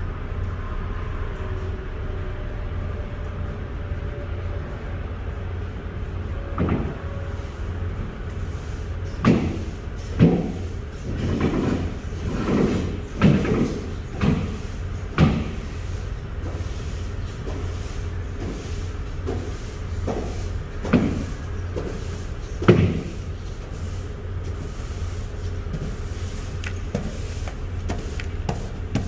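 Steady low machine rumble inside an empty trailer box, with a string of hollow knocks and thumps from broom sweeping and footsteps on the grooved metal floor, most of them between about 9 and 23 seconds in.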